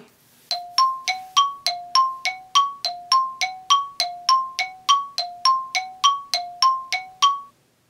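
Chime sound effect ringing two alternating notes, low then high, about three dings a second, as a thinking-time countdown cue. It stops shortly before the end.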